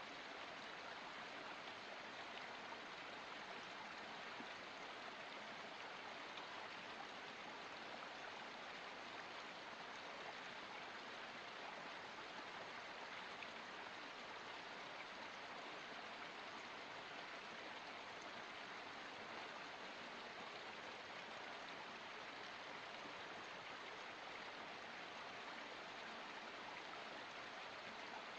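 Water of a small forest spring running, a quiet, steady, even rush of flowing water with no change.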